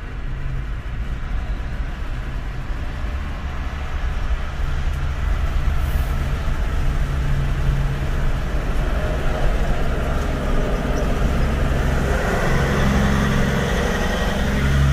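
Road and traffic noise from a moving car travelling beside a Peterbilt semi truck: the low drone of the truck's diesel engine and tyres. It grows louder near the end as the car draws level with the tractor.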